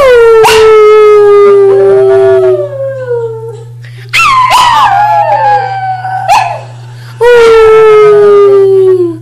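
Small Chihuahua-type dog howling: three long howls of about two seconds each, each sliding down in pitch as it ends, with short pauses between them.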